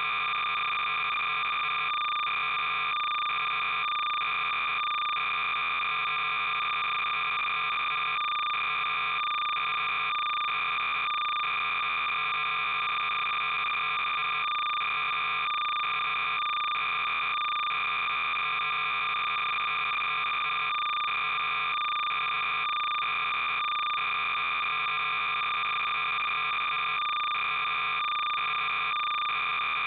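Steady synthetic electronic signal: a dense buzzing stack of tones with hiss, pulsing at an even rhythm, like data played back as sound.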